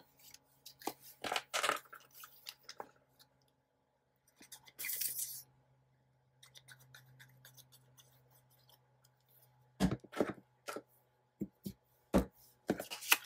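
Paper and card being handled on a work table: scattered clicks and rustles, a short scratchy swish about five seconds in, and a few sharp knocks near the end.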